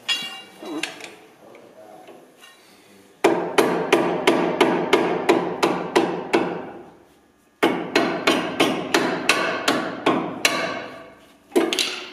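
Hammer blows on the steel track tension adjuster assembly of a WWII Flakpanzer hull, being knocked loose for removal. Sharp ringing metal-on-metal strikes come in two fast runs of about three or four blows a second, each about three seconds long with a short pause between, plus a few single blows at the start and near the end.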